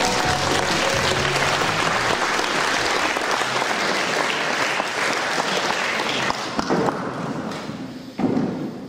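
Audience applauding, with the end of the music fading out in the first second; the applause dies away near the end.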